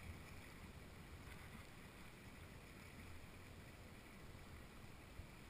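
Near silence, with a faint low rumble from a ski boat's engine idling.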